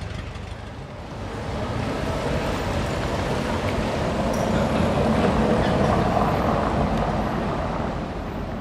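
1965 Bentley S3 Continental, with its V8 engine, driving past at low speed over cobblestones: engine and tyre noise swell to a peak in the middle, then fade as the car moves away.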